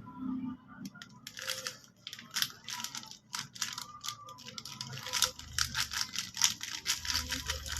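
Plastic packaging crinkling and rustling as it is handled, in a run of quick irregular crackles.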